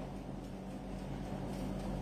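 A steady low hum over faint background hiss, with no clatter or other event.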